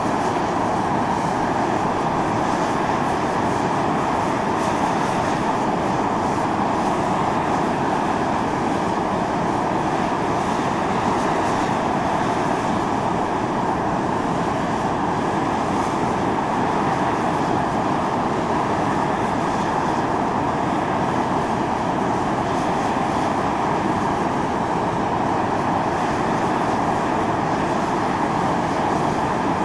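Volcanic fumarole at Mt. Io (Atosanupuri) venting steam and gas in a steady, continuous rushing hiss.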